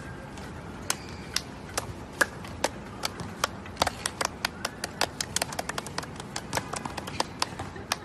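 Hands clapping in an uneven rhythm: single claps about a second apart at first, then faster, around three or four a second, from about halfway through.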